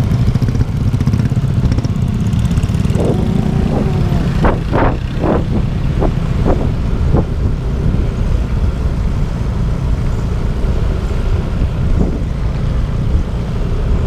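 Motorcycles riding along a road, their engines running in a steady low rumble. A few short higher-pitched sounds come about three to seven seconds in.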